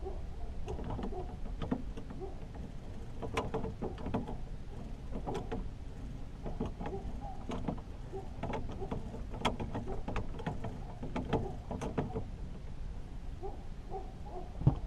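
Rod, reel and boat handling noise during a catfish fight: irregular sharp clicks and knocks over a steady low rumble, with one louder knock near the end.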